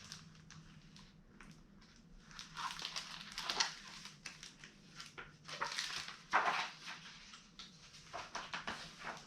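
Paper rustling in three bursts a few seconds apart: the pages of a hardcover picture book being turned and handled.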